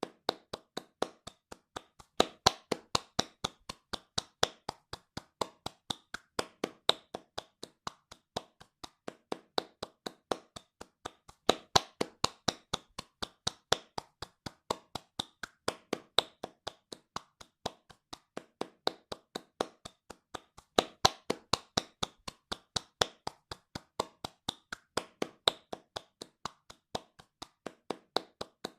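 Hands clapping fast in an even rhythm, about four sharp claps a second, some claps louder than others.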